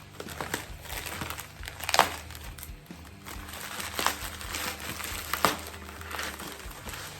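Plastic packaging crinkling and rustling as it is handled and unpacked, with sharper clacks about two, four and five and a half seconds in.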